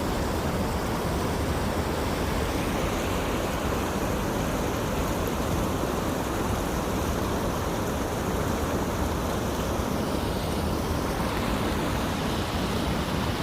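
Floodwater rushing in a steady, even roar.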